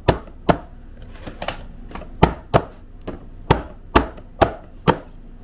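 A baking pan full of cake batter being tapped repeatedly, sharp knocks about two a second, to bring air bubbles in the batter up to burst before baking.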